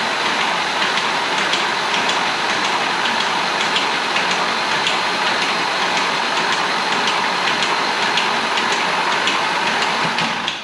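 Starter motor cranking a newly assembled engine with its spark plugs removed: a steady, loud spin with regular faint ticks, turning the engine over to build oil pressure. It cuts off right at the end.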